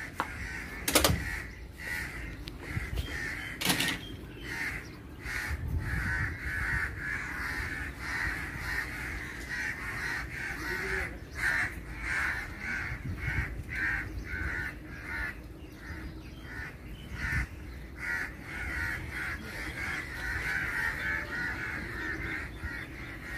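A group of crows cawing over and over without let-up: agitated calls from adult crows guarding a grounded sick young crow. Two sharp knocks come about one second in and just before four seconds.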